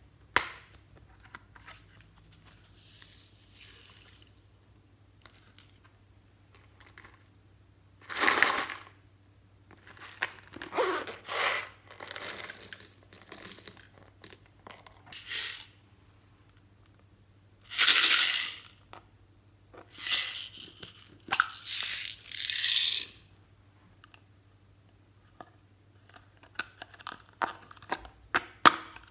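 Plastic cases and packaging being handled and opened over a tray of slime: a series of crinkling, crackling bursts a few seconds apart, then a run of small plastic clicks near the end, over a faint steady hum.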